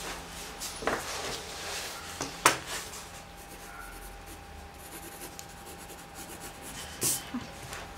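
Graphite pencil scratching on drawing paper in short strokes, with a sharp tap about two and a half seconds in and another near the end.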